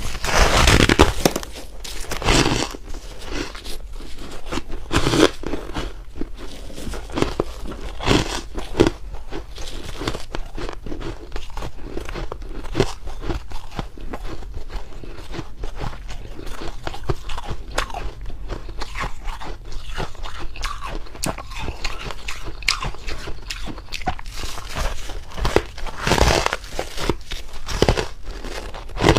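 Ice being bitten and chewed close to the microphone: repeated crisp crunches and crackles of ice cracking between the teeth, with louder bites about a second in, around eight seconds and near the end.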